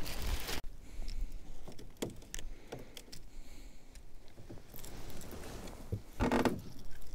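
Plastic lure packaging rustling briefly, then scattered small metallic clicks and clinks as a wobbler lure's hooks and the line's snap are handled while the lure is clipped on, with a louder rustle near the end.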